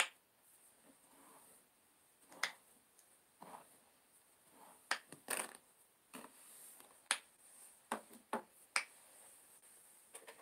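Knuckles cracking: a series of about ten sharp pops at irregular intervals, roughly a second apart.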